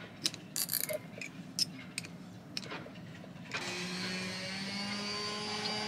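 Spanners clicking and clinking against a stainless Norseman rigging terminal as it is tightened, a string of sharp metal ticks over the first three seconds or so. About three and a half seconds in, a steady machine hum with a few held tones comes in.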